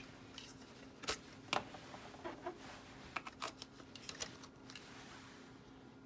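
Hard plastic action-figure parts clicking and knocking as a helmet piece is swapped on a Masters of the Universe Origins Stridor toy horse: a scatter of short, sharp clicks, bunched in the middle, over faint room tone.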